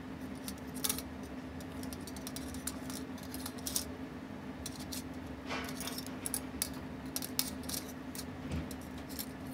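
Light metallic clicks and clinks of small watchmaker's tools and parts being handled on the bench, scattered irregularly, over a steady low hum.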